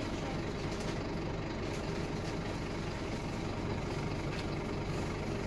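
Scania OmniLink single-deck bus running, heard from inside the passenger saloon as a steady low engine drone.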